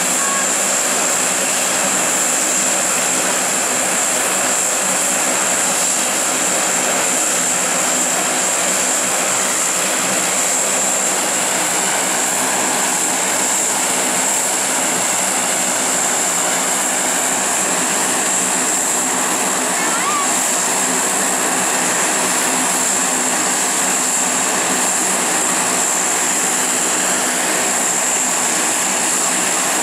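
Lockheed C-130 Hercules's four Allison T56 turboprop engines running steadily on the ground, propellers turning: a loud, unchanging high-pitched turbine whine over a low, even propeller hum.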